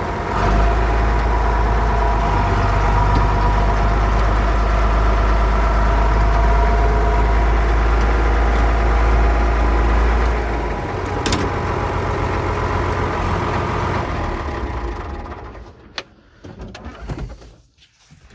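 John Deere 4030 tractor's six-cylinder diesel engine running with a steady low rumble. About 15 seconds in the engine sound falls away, leaving a few sharp clicks.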